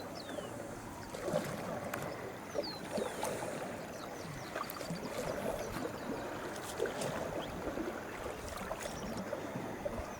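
Water lapping and small paddle splashes around a dugout canoe moving along a river. A bird gives a short whistle that falls in pitch, twice.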